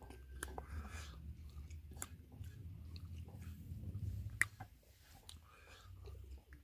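A person chewing a mouthful of food close to the microphone, with scattered small wet clicks and smacks and one sharper click a little past four seconds in.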